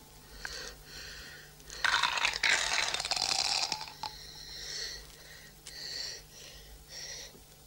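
Glass marbles being trickled, a stereotyped play. A dense clattering pour of marbles starts about two seconds in and lasts about two seconds, followed by three shorter clinking rattles.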